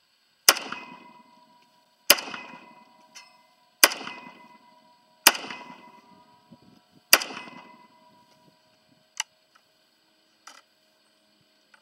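Five semi-automatic shots from a Zastava M92 PAP 7.62×39 AK pistol, about one and a half to two seconds apart, each followed by a ringing, echoing tail. Two much fainter sharp cracks come near the end.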